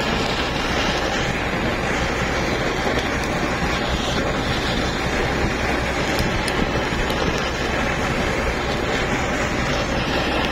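Gas torch flame hissing steadily as squid is seared in it, over a constant low hum of the boat's machinery.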